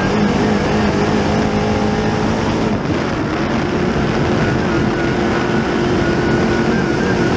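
The 604 crate small-block V8 of a dirt Late Model race car running hard at racing speed, heard from inside the cockpit. The engine note wavers and climbs in pitch about halfway through, over a steady rush of tyre and dirt noise.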